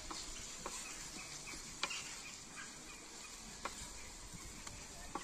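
Utensil stirring vegetables in a sac pan over a wood fire: a few scattered clicks and scrapes against the metal over a faint steady hiss.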